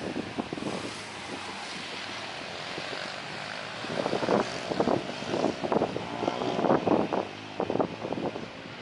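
Jet engines of an AirAsia Airbus A320-family airliner running at taxi power as it turns on the runway, a steady hiss. From about four seconds in, irregular gusts of wind buffet the microphone.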